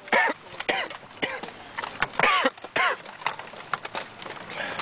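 A man coughing repeatedly, about six short coughs, from a head cold.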